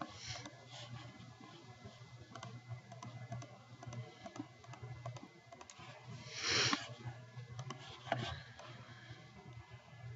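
Scattered computer mouse and keyboard clicks, faint, over a low steady hum, with a short burst of hiss lasting under a second about six and a half seconds in.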